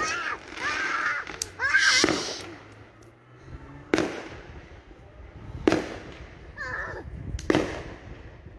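Fireworks going off outdoors: four sharp bangs, one right at the start, then about 4, 5.7 and 7.5 seconds in, each followed by a crackling hiss.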